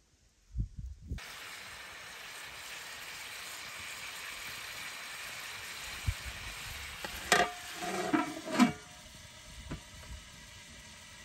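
Stuffed tomatoes and peppers sizzling in a wide metal pan over a wood fire; the steady sizzle starts suddenly about a second in. Near the end a metal lid clatters onto the pan with a few ringing knocks, and the sizzle is quieter once the pan is covered.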